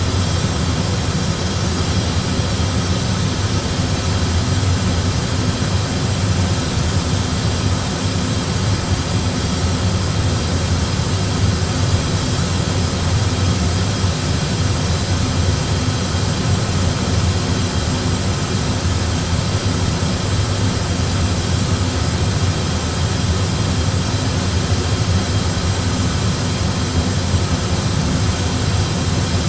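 Steady flight-deck noise in an Airbus A320 cruising on approach: an even rush of air over a low hum, unchanging throughout.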